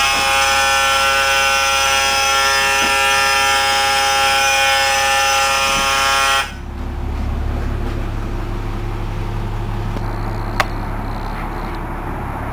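School bus emergency exit door alarm buzzing loudly and steadily, the warning that the rear emergency door is unlatched; it cuts off suddenly about six and a half seconds in. Underneath, the DT466E diesel engine idles steadily, and a single sharp click comes near the end.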